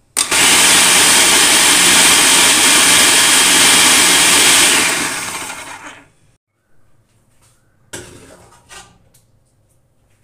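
Electric food processor running at full speed, chopping cooked chicken and chana dal, for about five seconds, then winding down over the next second. A short knock follows near the end.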